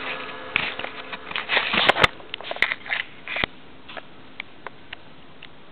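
The last ring of a drum kit fades out. Then comes a flurry of clicks and knocks from the camera being picked up and handled, thinning to a few faint scattered ticks.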